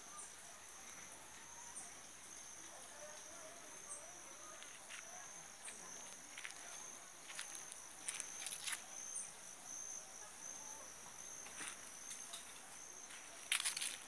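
Insects trilling steadily on one high note, with scattered short crackling clicks that come thicker and louder near the end.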